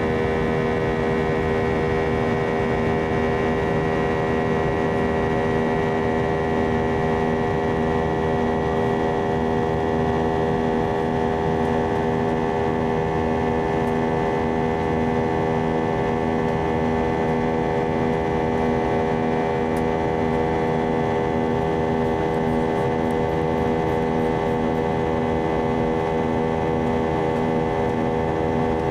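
Steady cabin drone of an Airbus A320-200 in flight, heard from inside the cabin: engine hum with several steady tones over a rushing airflow noise.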